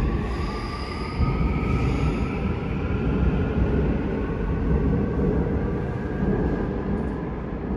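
Seoul Subway Line 2 electric train running alongside the platform with a steady low rumble. Its motor whine rises slowly in pitch in the first few seconds.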